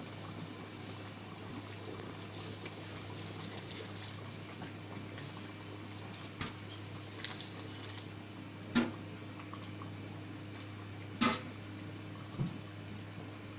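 Chicken curry simmering in a pot, a steady bubbling hiss over a constant low hum, broken by four short knocks in the second half, the loudest about nine and eleven seconds in.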